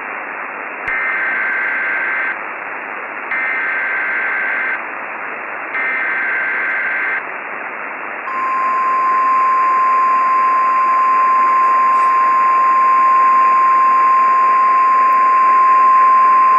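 Emergency Alert System weather-radio broadcast over radio static hiss. Three short bursts of warbling SAME data-header tones are followed, about 8 seconds in, by the steady 1050 Hz NOAA Weather Radio warning alarm tone, which announces that a National Weather Service warning is about to be read.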